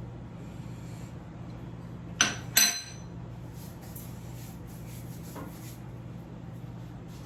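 Two quick metallic clanks of kitchen cookware, a pan or utensil knocked against metal, about two seconds in, with a short ring after them. A steady low hum runs underneath.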